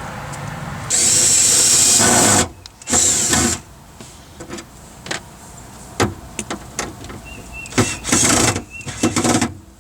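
Power drill running in short bursts, the first about a second and a half long and the others under a second, with sharp clicks and knocks between them.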